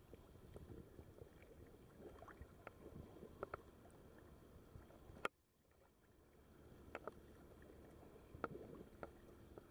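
Faint small waves lapping and splashing against a camera held at the sea surface, with scattered light ticks. A sharp click comes about five seconds in, and the sound drops away sharply for a second or so before the lapping returns.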